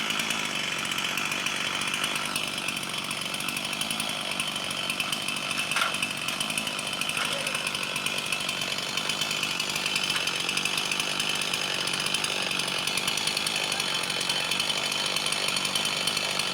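Chainsaw running steadily as it cuts a tree limb.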